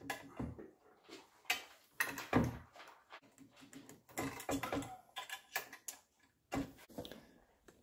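An animal eating dry dog food: a quick, irregular run of small clicks and crunches as the kibble is picked up and chewed.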